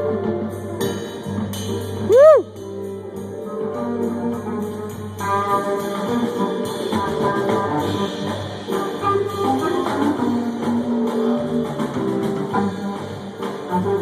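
A rock band playing live over a PA, with guitar and drums. About two seconds in, a brief, loud tone rises and then falls.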